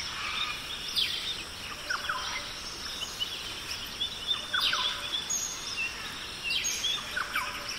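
Birds chirping over a steady outdoor hiss: short, quick downward chirps every second or so, with a fast run of repeated high notes about four seconds in.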